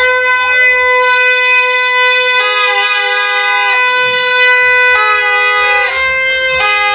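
Several noisemaker horns blowing long, overlapping held notes. One steady tone sounds throughout, while a second, higher horn starts and stops every second or so.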